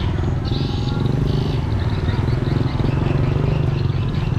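Street noise with a motorbike engine running close by: a steady low engine hum.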